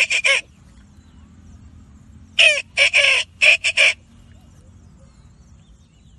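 A man imitating the call of the black francolin with his voice: phrases of several short notes. The end of one phrase comes right at the start, and a full phrase of about five notes comes about two and a half seconds in.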